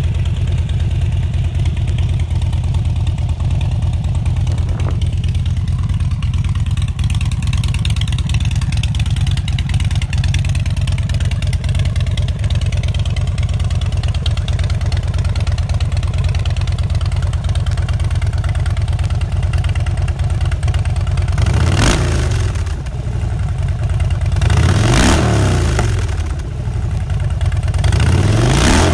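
2015 Harley-Davidson Dyna Street Bob's 103-cubic-inch V-twin running through a Vance & Hines aftermarket exhaust. It idles steadily for about twenty seconds, then is revved three times near the end, the pitch rising and falling with each blip of the throttle.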